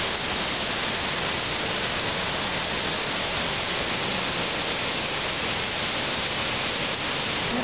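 A mountain river in flood rushing steadily, an even, unbroken noise of churning water.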